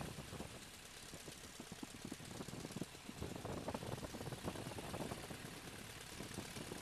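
De Havilland Tiger Moth's four-cylinder inverted engine idling on the ground, its propeller turning, running with an uneven pulsing.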